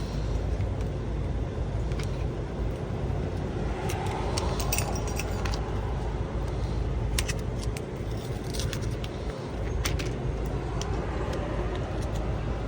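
Scattered small clicks and taps of a plastic key fob being handled while its coin battery is changed, over a steady low rumble.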